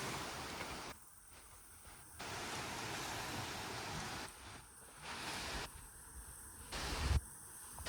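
Coastal outdoor ambience: a steady rushing of wind and surf, in short clips that cut in and out abruptly, with quieter stretches between them.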